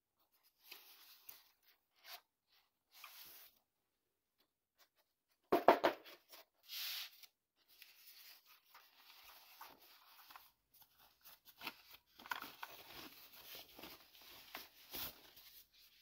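Rustling and crinkling of a thin protective wrapping sleeve being handled and pulled off a keyboard, in irregular bursts, with a sharp clatter of several quick knocks about five and a half seconds in.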